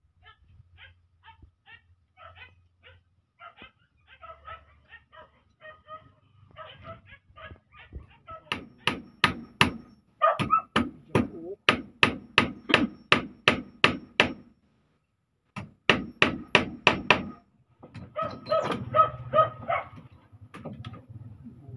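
Hammer striking the wooden frame of a hut's door as the door is fixed in place. It starts as light, scattered taps, then from about a third of the way in turns into fast runs of hard blows, about three a second, with a short pause between the two runs.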